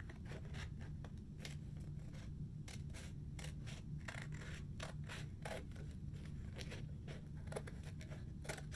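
Scissors snipping through thick paper in many short, irregular cuts while a circular hole is cut out.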